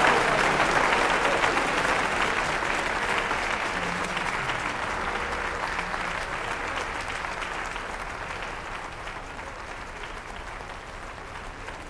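Audience applauding in a theatre, many hands clapping together and slowly fading away.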